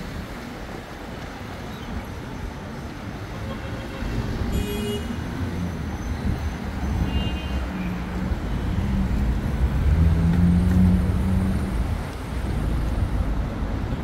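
City street traffic: a motor vehicle's engine rumbles past, swelling to its loudest about ten seconds in and fading after. Two short high-pitched tones sound briefly, about four and a half and seven seconds in.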